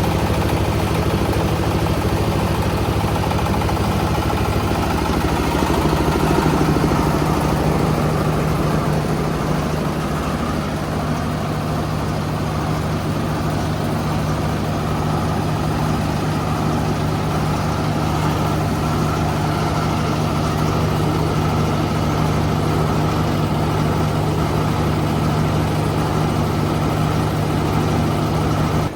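Engine-driven corn sheller running steadily at speed: a continuous engine drone with a mechanical rattle and whir over it.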